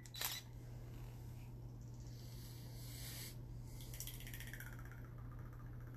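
Olive oil pouring in a thin stream from a pour container into a measuring cup: a faint, soft trickle, with a short click just after the start.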